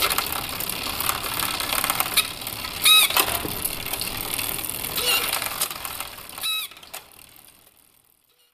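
Shimano Ultegra Di2 electronic drivetrain on a KTM Lisse road bike: the chain runs over the chainrings and cassette as the crank is turned by hand, with short electric whirs of the derailleur motor as it shifts, loudest about three seconds in and again at about six and a half seconds. The running sound dies away near the end.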